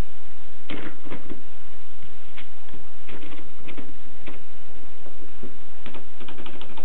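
Keys of a 1920s Erika manual typewriter striking at an irregular typing pace: sharp clicks, single or in quick runs, with a flurry near the end, over a steady hiss.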